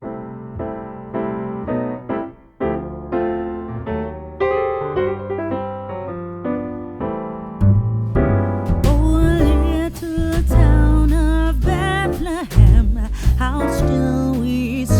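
Background music: a piano or electric piano plays alone at first, then bass and drums come in about halfway, with a singing voice over them.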